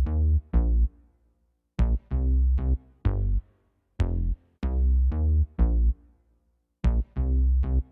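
Electronic ringtone tune played on Groovepad beat pads: sharp pitched synth stabs over a deep bass, in short phrases of three or four hits with brief silences between.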